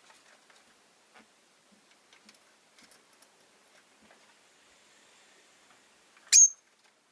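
Faint scattered ticks and taps, then near the end one loud, short, high-pitched chirp from a rosy-faced lovebird.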